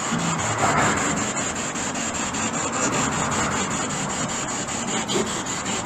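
SB7 spirit box sweeping through radio stations: a steady static hiss chopped several times a second as it jumps between frequencies, with brief garbled radio fragments about a second in.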